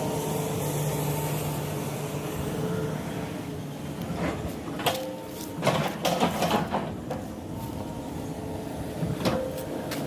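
Excavator diesel engine running steadily. A cluster of clattering knocks comes between about four and seven seconds in, with one more near the end.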